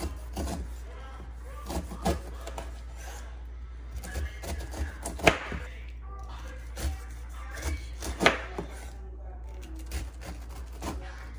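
Chef's knife cutting the skin off a whole pineapple in strips: a series of separate cutting sounds and knocks of the blade against the countertop, the sharpest about five and eight seconds in.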